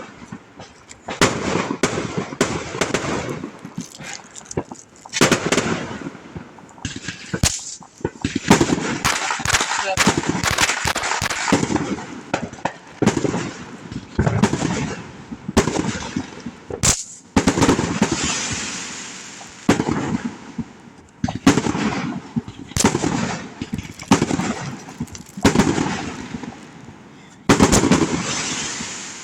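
Fireworks going off in quick succession: dozens of sharp bangs and cracks, some in rapid rattling runs, with crackling and hissing between them.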